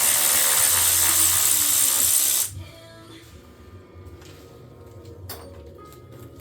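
Pneumatic air tool running with a loud, steady hiss of compressed air, cutting off about two and a half seconds in; after that, faint scattered clicks of tools on the engine.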